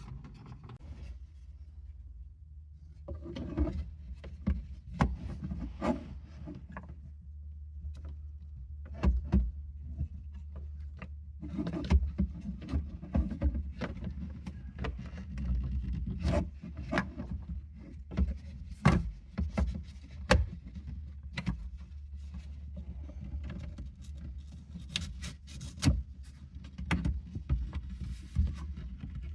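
Plastic trim covers of a car's rear-view mirror housing being handled and fitted back together: irregular clicks, knocks and rubbing of plastic, some sharp and loud, over a steady low hum.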